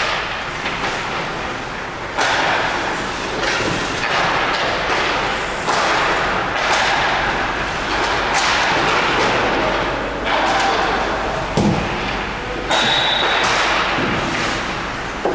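Ice hockey rink sounds: skate blades scraping on the ice in repeated rasping bursts that start sharply every second or two, with thuds among them.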